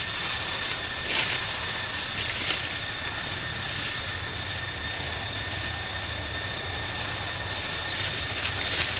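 Steady outdoor background noise with a faint, thin, high steady tone running through it, broken by a few brief soft rustles about a second in, near the middle and near the end.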